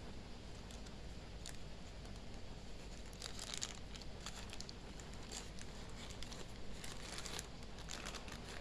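Plastic courier mailer bag crinkling and rustling as it is handled and cut open with scissors, with crackly bursts about three seconds in and again near the end.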